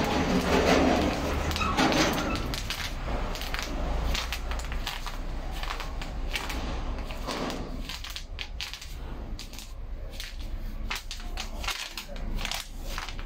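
Footsteps crinkling and crackling on plastic sheeting laid over a coach floor, an irregular run of small clicks and rustles, busiest in the first few seconds.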